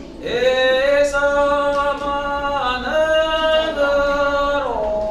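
Unaccompanied singing: long held notes in a slow chant-like line that slide smoothly up or down to each new pitch, with no instruments.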